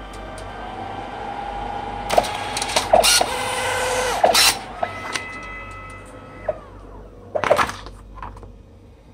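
Citizen CX-W dye-sublimation photo printer running as it prints and feeds out a print, its motors whining with several steady tones. Sharp mechanical clacks come about two to four and a half seconds in. The motors wind down after about six and a half seconds, followed by a burst of paper handling near the end.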